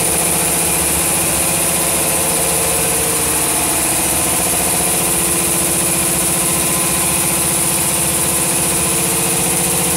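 Machinery of an automatic paint-spraying line running: a loud, steady mechanical hum with a constant high hiss over it.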